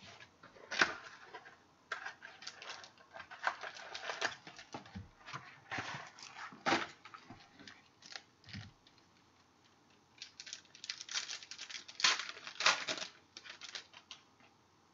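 A pack of 2015 Crown Royal football trading cards being opened and handled: irregular rustling, clicks and the slide of cards against each other, with a short pause about nine seconds in.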